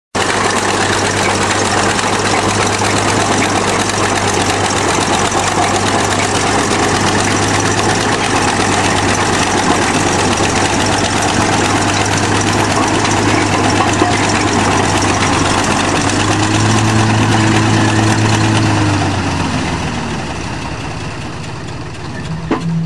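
Large bulldozer's diesel engine running steadily. It rises and falls once about two-thirds of the way through, then dies down toward the end.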